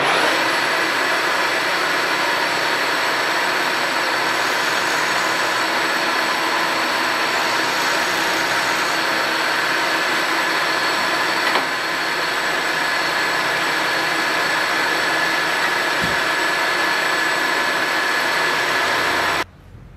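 Milling machine running and cutting into the metal workpiece of a sword pommel clamped in its vise, with the table hand-fed: a steady motor-and-cutting whine with a high tone through it, which stops suddenly near the end.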